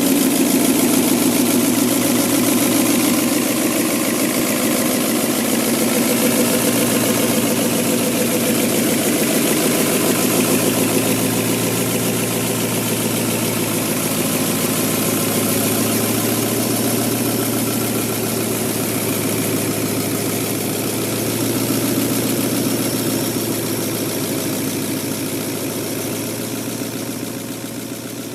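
Diesel engine running steadily with a fast, even beat, getting a little quieter over the last few seconds.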